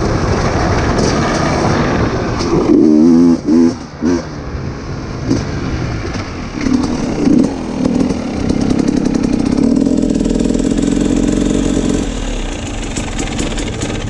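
Dirt bike engine being ridden down a dirt track, with quick throttle blips about three and seven seconds in, then running steadily at low revs as the bike rolls in and slows to a stop.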